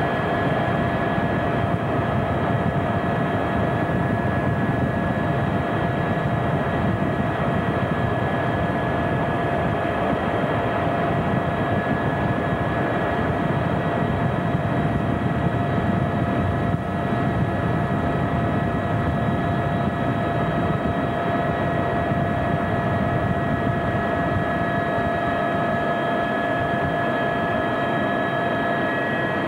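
Aérospatiale AS350B Squirrel helicopter heard from inside its cockpit in flight: a steady, even rumble of engine, rotor and airflow with several high steady whining tones over it, unchanging throughout.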